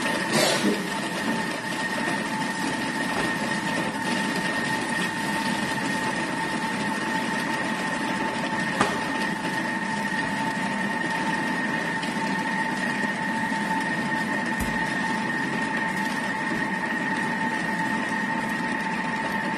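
Thermomix motor running steadily as it stirs a thick mix of melted chocolate, broken biscuits, fruit and nuts together, a steady whine over a low hum.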